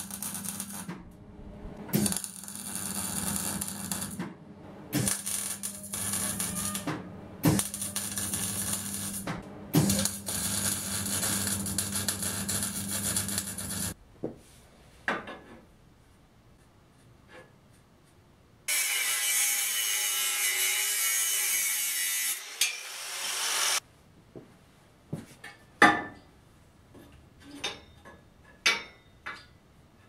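Electric arc welding on steel tube: five crackling, hissing weld runs of one to four seconds each, with short breaks between them, over a steady low hum. After a pause comes one long, loud hiss of about five seconds, then a few sharp metal knocks.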